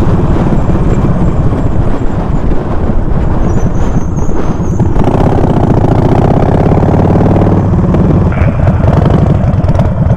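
Harley-Davidson Sportster V-twin motorcycle engine running under way, with a rapid low pulsing. The engine note rises for a couple of seconds about halfway through.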